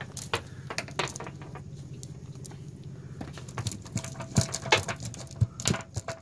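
Scattered light taps and pattering from a fish and net being handled on a wooden boat, over a low steady hum; the sharpest knocks come in the second half.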